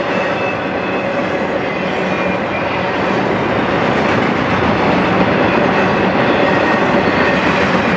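Intermodal freight train cars loaded with highway trailers rolling past, a steady rolling noise of steel wheels on rail with faint steady high tones above it. It grows a little louder about halfway through.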